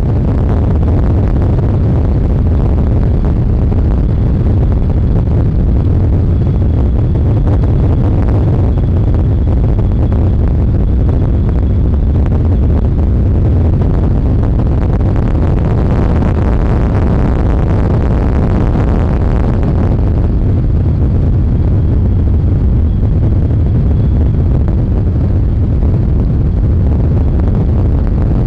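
Phoenix 920 Pro XP fiberglass bass boat running at speed under outboard power: a loud, steady rumble of engine, hull and water. A brighter hiss swells for a few seconds a bit past the middle.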